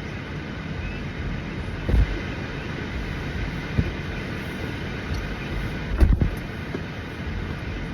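Steady low rumble inside a car cabin with the engine running, with dull thumps about two seconds and six seconds in and a smaller knock between them.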